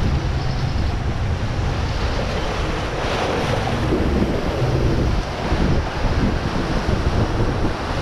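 Whitewater rapids rushing and churning around a river-rapids ride raft as it runs down a concrete channel: a steady, full rush of water.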